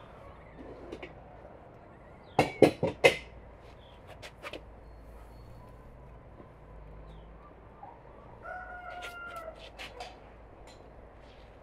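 A rooster crowing once, a held call of about a second near the end. Earlier, about two and a half seconds in, a quick run of four or five sharp knocks.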